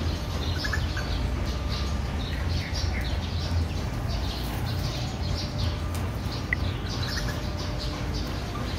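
Small birds chirping in quick, scattered bursts, over a steady low rumble.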